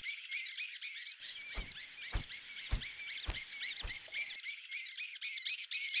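Young lesser kestrels calling: a fast, even series of short high-pitched calls, several a second. A few soft thumps, about two a second, sound in the middle.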